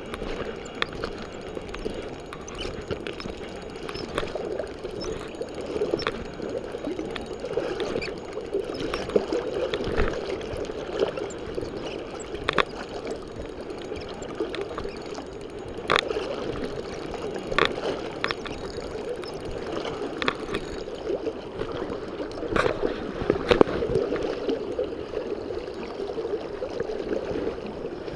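Spinning reel being cranked steadily by hand, with a line under load, over the gurgle of river water close by, and scattered light clicks and knocks.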